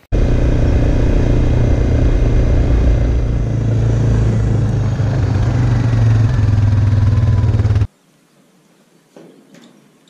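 Suzuki KingQuad quad bike's single-cylinder four-stroke engine running under way. It cuts off suddenly about eight seconds in.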